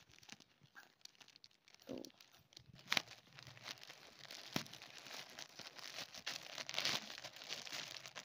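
Thin plastic courier mailer bag being torn open by hand: crinkling and tearing polythene, with a couple of sharp snaps about three and four and a half seconds in, the crinkling growing denser in the second half.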